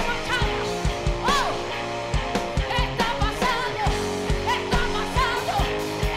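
Live Christian worship music: a woman sings a gliding melody into a microphone over electric guitar, electric bass and a drum kit with a steady kick-drum beat.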